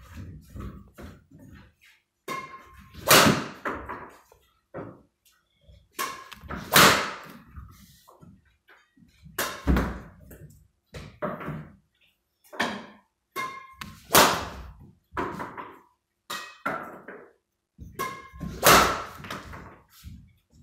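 Badminton smashes: a Finnex CyberAge 10 racket's strings striking shuttlecocks, five loud sharp cracks a few seconds apart, with softer knocks between.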